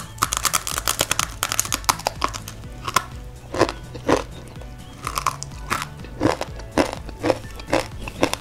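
Close-up crunching of mie lidi, crisp fried stick snacks, bitten off a bundle and chewed: a quick run of crunches at first, then single crisp crunches about two a second.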